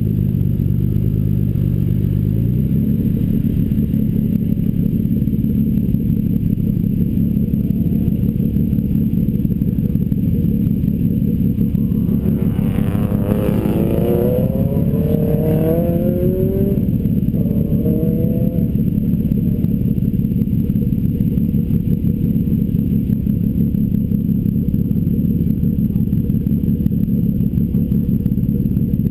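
Toyota Supra twin-turbo's 2JZ-GTE straight-six idling steadily while the car waits at the start line. Several short engine notes rising in pitch are heard over it in the middle.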